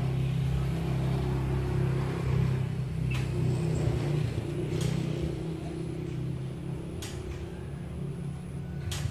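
Steady low engine hum running throughout, with a few short clicks.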